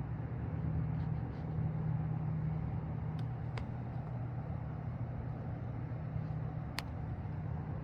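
Steady low mechanical hum, with a few faint sharp clicks: two a little past the middle and one near the end.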